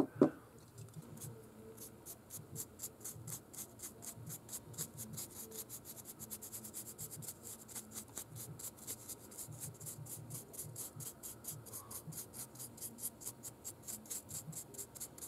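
Large stiff-bristled brush dry brushing green paint across the leaves of a 3D-printed tree canopy: quick, even scratchy strokes, several a second, starting about a second in.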